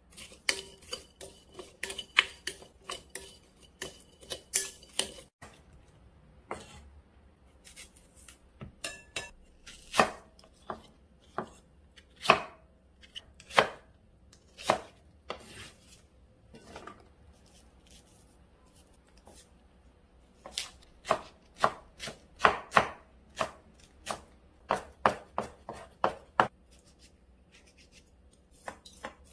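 A wooden spoon clinks quickly against a glass bowl for about five seconds while stirring cucumber pieces. Then a kitchen knife cuts an apple into chunks on a wooden cutting board: separate sharp strikes on the board, in uneven runs with pauses between.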